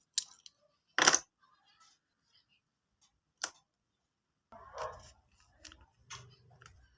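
Paper and plastic fan-mail items being handled: short crinkles and rustles, the loudest about a second in, a sharp one about three and a half seconds in, then softer scattered rustling near the end.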